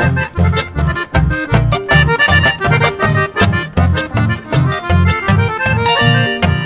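Instrumental Paraguayan folk music led by a piano accordion, with strummed nylon-string guitars and harp over a steady bass beat of about three notes a second; a few held accordion chords near the end.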